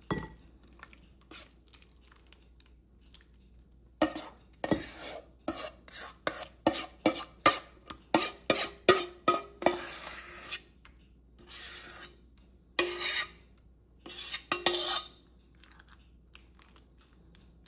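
A spoon scooping potato salad out of a bowl: quiet at first, then about four seconds in a quick run of scrapes and clinks against the bowl, with a faint ring from the bowl, for about eleven seconds before stopping.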